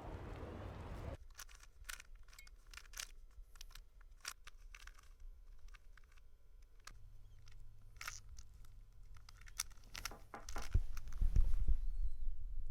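Scattered small clicks and rustling handling noises, with a faint steady hum joining partway through and a louder low rumble near the end.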